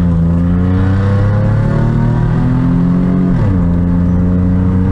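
Car engine pulling under acceleration, its pitch climbing steadily, then dropping sharply about three and a half seconds in as it shifts up a gear before pulling again.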